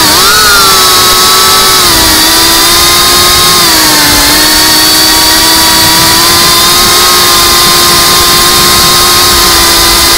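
Geprc CineLog 35 cinewhoop's brushless motors and ducted propellers whining at a near-steady throttle, the pitch settling slightly lower about four seconds in.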